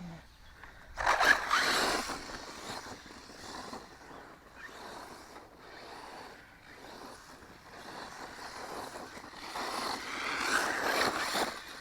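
JLB Racing Cheetah RC truck on a 2S LiPo driving past, a rushing sound of its tyres and drivetrain on the ground. It comes loudest about a second in and again near the end, with quieter running between.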